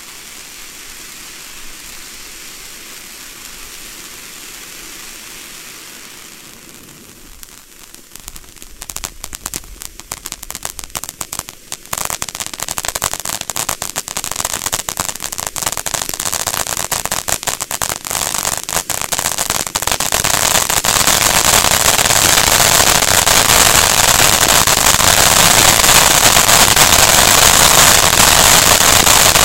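Kimbolton 'Stalagmite' ground fountain firework burning: a steady hiss of sparks at first, then crackling that starts about eight seconds in and grows denser and louder, turning into a continuous loud crackle for the last third.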